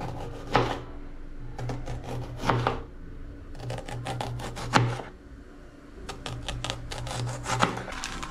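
Garlic and ginger being grated on a metal box grater: four runs of quick rasping strokes with short pauses between them.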